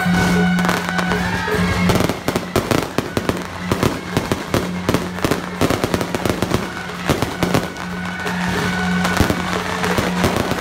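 Aerial fireworks bursting overhead: a dense, irregular run of bangs and crackles from many shells going off in quick succession. Music and a steady low hum play underneath.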